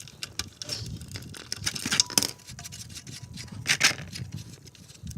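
Irregular metallic clicks and clinks of a socket wrench on a motorcycle's oil drain plug as it is broken loose, with two louder clusters of clinks about two seconds and nearly four seconds in.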